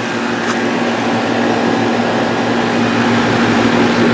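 2011 Goodman central air conditioner's outdoor condensing unit running steadily: a low hum under an even rush of air from its fan.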